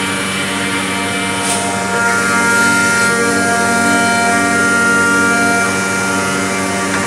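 BACCI Master CNC machining centre running, its router spindle giving a steady whine of several tones over a noisy hiss, the pitches shifting a little every second or two as the head moves along the door workpiece.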